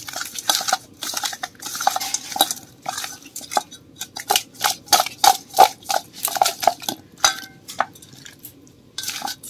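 Raw fish pieces being turned and rubbed with turmeric and salt by hand in a steel bowl: a run of irregular clinks and knocks against the bowl, thinning out about three-quarters of the way through.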